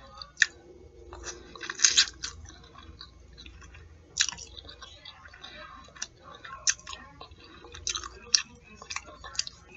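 A person biting and chewing crispy fried fish nuggets and fries, with a run of sharp crunches about two seconds in and scattered single crunches after.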